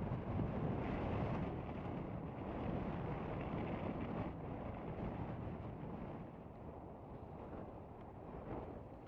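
Small outboard motor of an open fishing boat running out on the water at a distance, mixed with wind on the microphone; the sound slowly fades over the second half.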